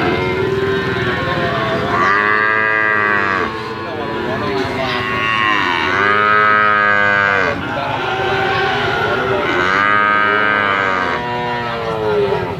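Bali cattle mooing: three long moos, each lasting about one and a half to two seconds, with the pitch dipping and rising again within each call.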